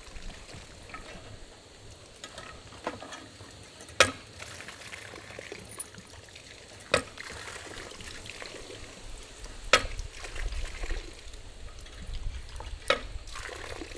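Water trickling and splashing, with four sharp knocks about three seconds apart.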